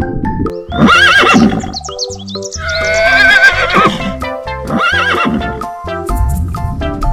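A horse neighing: a short whinny about a second in, a long wavering whinny in the middle and another short one near the end, over background music.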